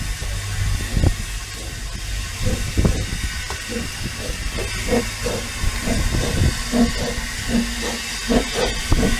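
Steam hissing steadily from a narrow-gauge double Fairlie steam locomotive, Earl of Merioneth, standing at the platform, with irregular low knocks and rumbles beneath the hiss.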